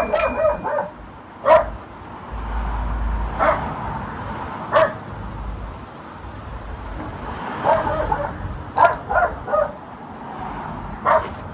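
A dog barking: short single barks at irregular intervals, some coming in quick runs of two or three.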